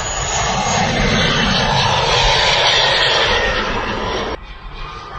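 Radio-controlled model jet making a low, fast pass: a loud rushing jet roar that swells over the first second or so. It drops off abruptly a little past four seconds in, and a fainter jet sound carries on.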